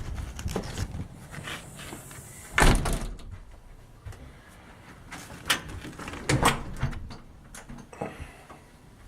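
A door being handled and opened, with a string of latch clicks and wooden knocks, the loudest clunk about two and a half seconds in and another cluster around six and a half seconds.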